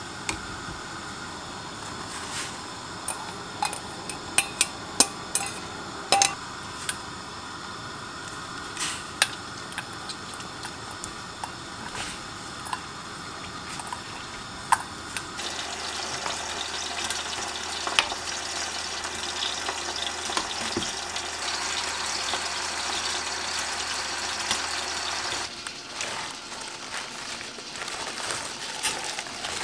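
A pot of dried pollack soup cooking on the stove. A utensil clinks and taps against the pot over a low hiss, then a steady cooking hiss runs for about ten seconds and cuts off abruptly.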